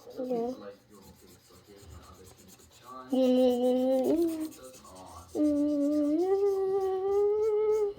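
A person humming long held notes: one for about a second, then after a short pause a longer one that steps up in pitch partway through.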